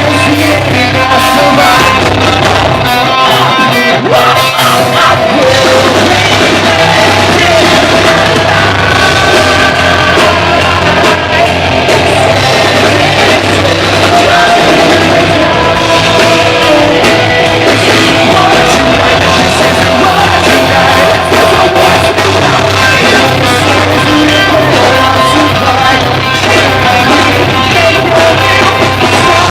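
A rock band playing live at full volume: distorted guitars, bass and drums with singing and shouted vocals, as heard at a small club show.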